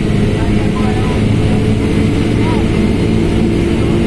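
Diesel engine of a Mercedes-Benz OF1721L BlueTec 5 bus running steadily at medium revs.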